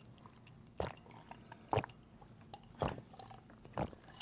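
A person chewing food near the microphone, with four short crisp crunches about a second apart.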